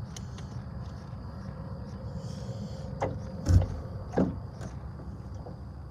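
A few knocks and one loud low thump about three and a half seconds in, over a steady high drone of insects and a low rumble.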